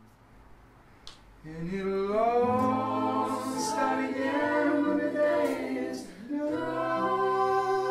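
A group of voices singing together in harmony, coming in loudly about a second and a half in after a soft, quiet stretch. There is a brief gap about six seconds in before they carry on.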